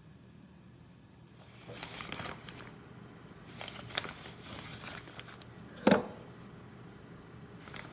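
Spatula scraping and folding airy dacquoise batter of meringue and almond flour in a stainless steel bowl, in two soft scratchy stretches with a small click, then one sharp knock about six seconds in.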